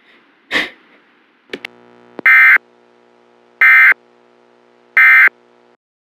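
Emergency Alert System end-of-message data bursts: three short, loud, screechy digital bursts about 1.4 seconds apart, marking the end of the alert. Under them a faint steady buzzing hum comes in about a second and a half in and cuts off just after the last burst.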